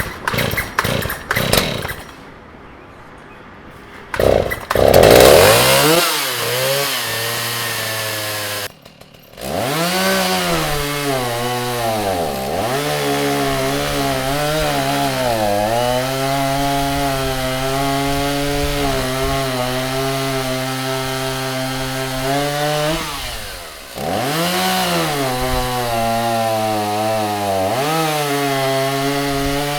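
Stihl MS 290 two-stroke chainsaw firing up and running at high revs, its pitch sagging sharply and recovering a few times as the chain is loaded, typical of cutting wood. It cuts out briefly about nine seconds in, then picks up again.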